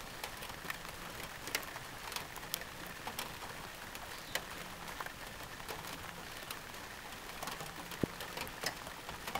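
Light rain: scattered drops ticking irregularly over a steady hiss.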